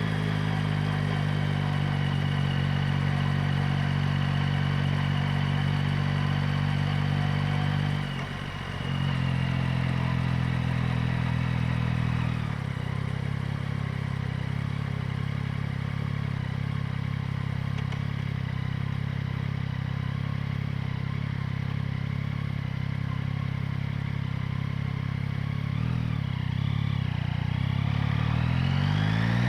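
Yamaha MT-09's three-cylinder engine running at steady revs, heard up close at the airbox and exhaust. It dips briefly about eight seconds in and settles lower a few seconds later. Near the end the revs climb.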